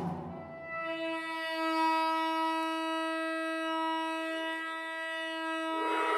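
Saxophone holding one long, steady note for about five seconds, entering just under a second in and easing off slightly towards the end.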